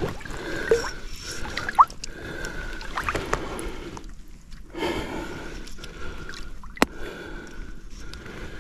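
Shallow stream water sloshing and gurgling around hands that hold a salmon in the water as it is released, with a single sharp click near the end.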